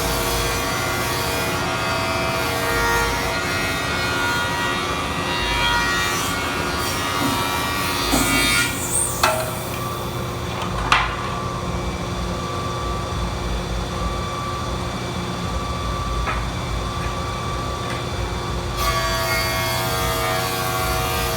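Stationary woodworking machine cutting walnut boards as they are fed through to be milled flat and to thickness. It runs steadily, with a few sharp knocks near the middle.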